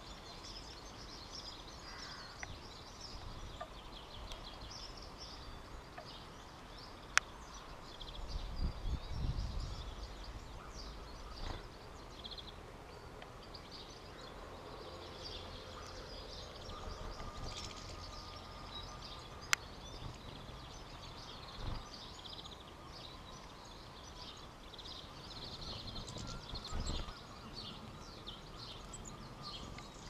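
Goldfinches twittering at a seed feeder: a steady stream of quick, high chirps. Now and then there is a low rumble, and there are two sharp clicks, one about seven seconds in and one about nineteen seconds in.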